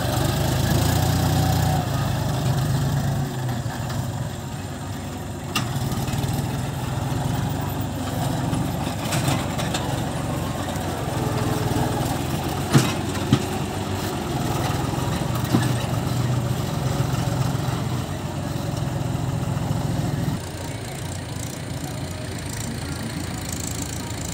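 John Deere tractor's diesel engine running steadily as it works through mud with its front dozer blade and rear plough, with a few sharp knocks and clicks. The sound drops quieter about twenty seconds in.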